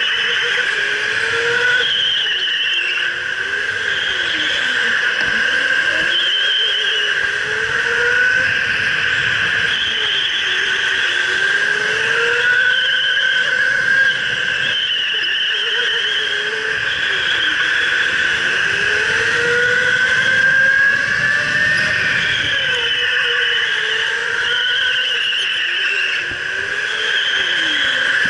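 Electric go-kart motor whining at 50 mph, its pitch rising and falling again and again as the kart speeds up and slows, over a steady rush of tyre and wind noise.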